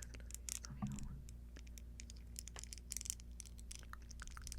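Earrings being handled, making many light, irregular clicks and taps.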